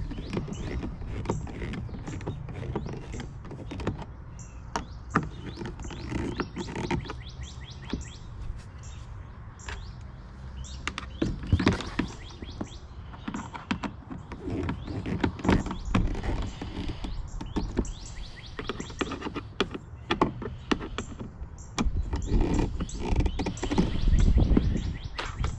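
Handling noise of hands working plastic motorcycle fairing and turn-signal parts: irregular clicks, taps and knocks over low rubbing, heavier near the end.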